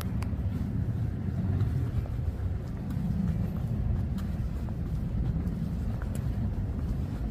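Steady low rumble of distant vehicles, with a few faint clicks.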